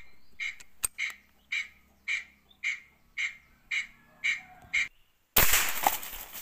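A short, sharp animal call repeated evenly about twice a second, with a single click about a second in. Near the end the calling stops and a sudden loud bang follows, fading away over about a second.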